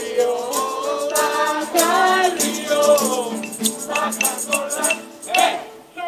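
A group singing a hymn to guitar, carried through a horn loudspeaker, with a shaker rattling a steady beat. The singing thins out near the end.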